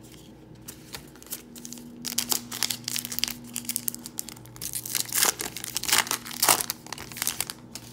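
The wrapper of a 2022 Topps Allen and Ginter trading card pack crinkling in the hands and being torn open, a dense, irregular crackle that is loudest about five to six and a half seconds in.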